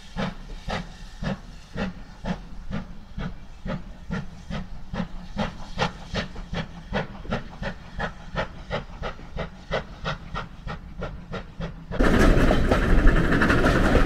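Steam locomotive working, its exhaust beating in sharp regular chuffs, about four a second. About twelve seconds in, this gives way abruptly to the louder, steady rumble and rush of a moving train heard from aboard a carriage.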